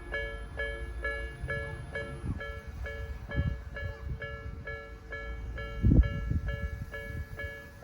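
Japanese level-crossing electronic alarm of the Nikko type ringing a steady, repeating two-tone ding, about two strokes a second, warning of an approaching train. Low rumbling runs beneath it, with a thump about six seconds in.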